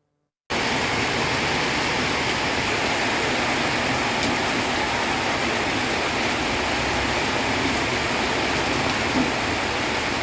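Steady rain, an even hiss that starts suddenly about half a second in and keeps a constant level.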